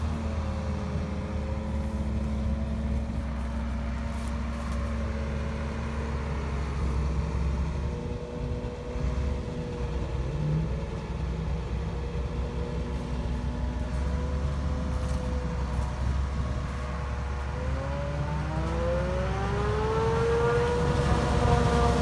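Self-propelled forage harvester running while it chops silage corn and blows it into a truck. It gives a steady low drone with a pitched whine over it. The whine drops at the start, then rises again and grows louder over the last few seconds.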